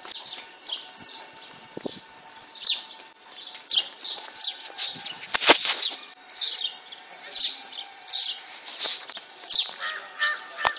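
Small birds chirping: short notes that fall in pitch, repeating about twice a second. There is one sharp click about halfway through.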